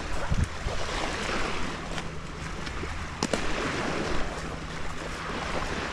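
Wind buffeting the microphone, with small waves washing at the shoreline, and a single sharp click about three seconds in.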